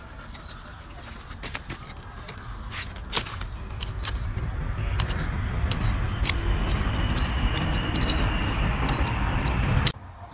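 A metal hand tool scraping and raking dry, crumbly soil back into a small hole: gritty scraping with many small clicks of clods and pebbles, growing denser, with a low rumble building underneath. It cuts off abruptly near the end.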